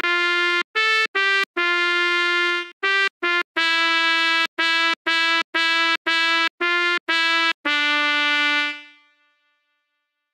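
Sampled trumpet notes from a web trumpet played on a computer keyboard's number keys: a simple tune of about fourteen separate notes, several in a row on the same pitch, each starting and stopping abruptly. The last note rings out and fades a little before nine seconds in, then silence.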